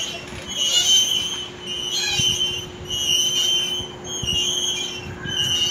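Playground swing creaking as it swings: the metal chains squeal at their hangers roughly once a second, in short high squeaks of uneven length.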